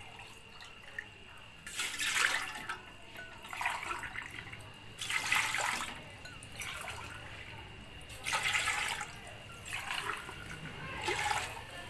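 Water being poured into a metal cooking pot in about six short splashing pours, with brief pauses between them.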